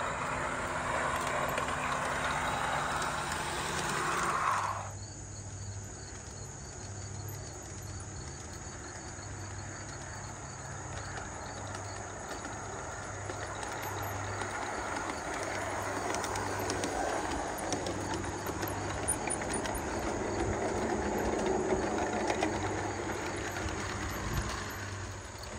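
Large-scale garden model train, a Lehigh Valley diesel locomotive hauling freight cars, rolling along outdoor track, its wheels clicking over the rail joints with a low pulsing hum. It grows louder as the train comes close in the second half.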